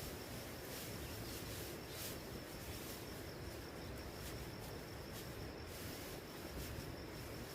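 A steady high-pitched insect call over an even hiss of rain, with a few faint drips.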